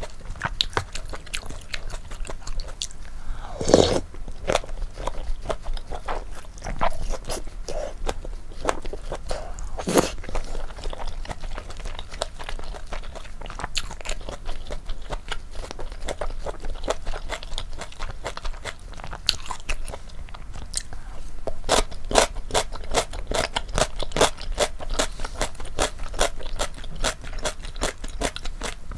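Close-miked eating of malatang: continuous chewing with crisp crunches and wet clicks, with two louder, longer sounds about four and ten seconds in and the crunching thickest about three-quarters of the way through.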